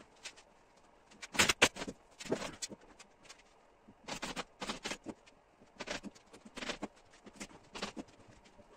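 Pneumatic upholstery staple gun firing staples into a chair frame: a string of sharp, short shots at irregular intervals, some in quick pairs.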